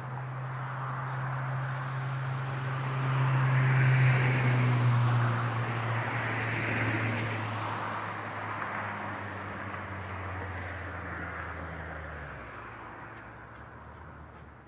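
A motor vehicle passing: a steady engine drone that swells to its loudest about four seconds in, then slowly drops in pitch and fades away.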